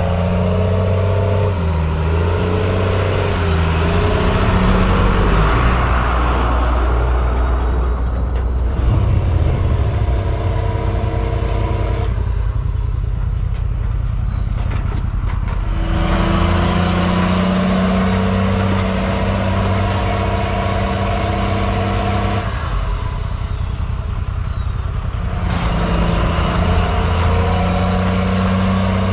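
Diesel engine of a custom-built off-road wrecker truck running under load as it crawls over sand and rock, its pitch shifting with the throttle, with a high whine that rises, holds and later falls away. The sound changes abruptly several times.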